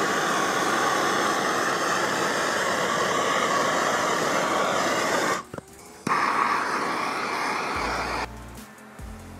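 Handheld gas torch hissing steadily as it is played over fresh epoxy resin to pop the surface air bubbles. It runs for about five seconds, cuts out briefly, then hisses again for about two more seconds; background music comes in near the end.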